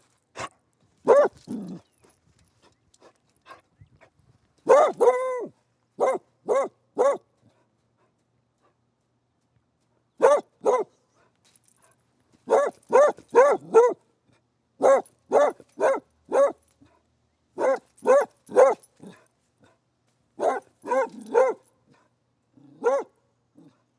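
A dog barking in short runs of sharp, pitched barks, with pauses of up to a couple of seconds between the runs.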